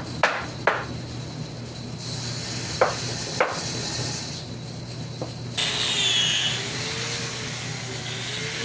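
A few sharp knocks on wood, a pair near the start and another pair about three seconds in, over a steady low hum and a faint wavering whine.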